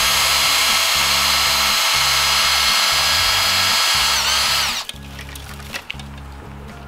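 Cordless drill boring a hole into a dry eucalyptus branch: the motor runs with a steady high whine, then slows and stops about four and a half seconds in. Background music plays underneath.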